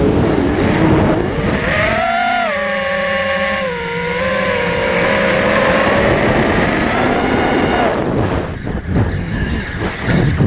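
FPV quadcopter's electric motors and propellers whining. The pitch rises and falls with the throttle: it climbs about two seconds in, drops and holds steady, then breaks into gusty buffeting near the end as the craft rolls over.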